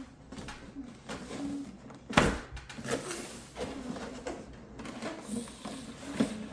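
Cardboard toy box being opened and handled: scraping, rustling and light knocks, with one loud, sharp snap about two seconds in.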